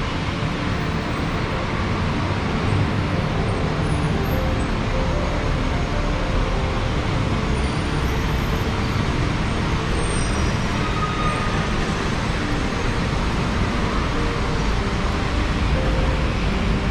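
Steady city road traffic noise: a continuous low rumble of passing vehicles with no single event standing out.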